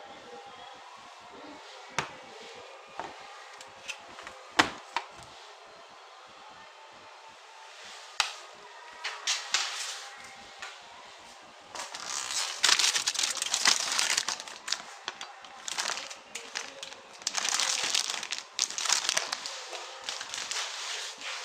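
Packaging being handled and unwrapped: a few sharp clicks and snaps, then, about halfway through, a long stretch of loud crinkling and tearing of plastic wrap.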